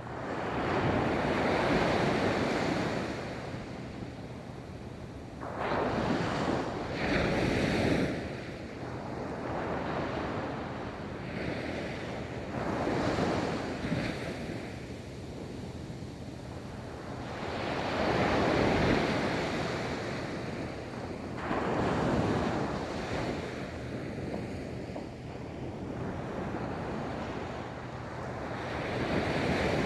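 Ocean waves rolling in and breaking on a beach, a louder surge of surf every few seconds over a steady wash of water.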